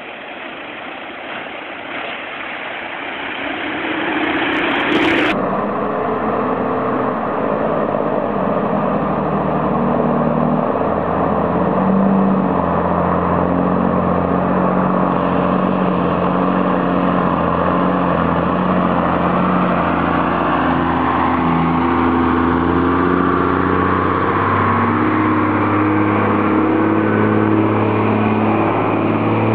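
A lorry ploughing through a flooded road, the rush of water growing louder. After a sudden cut about five seconds in, a Mercedes-Benz diesel truck's engine runs steadily as it fords a river, getting louder as the truck comes close.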